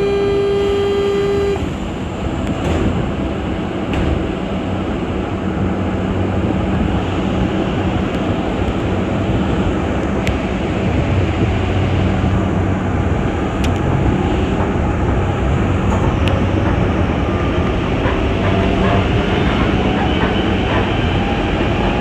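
Mexico City Metro Line 2 train running, a continuous rumble with a few sharp clicks. A steady tone cuts off under two seconds in, and a rising motor whine comes in over the second half as the train gathers speed.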